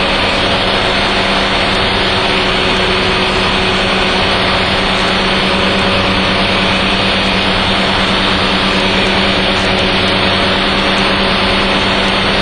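Steady in-flight cockpit noise of a Dyke Delta homebuilt aircraft: its Mazda rotary engine holds an unchanging hum under an even rushing noise, heard through the aircraft's headset intercom.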